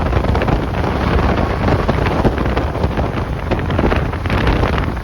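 Strong wind buffeting the microphone: a steady, loud low rumble with many small crackles throughout.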